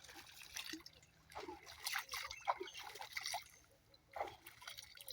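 Pumped water trickling and splashing, faint and uneven.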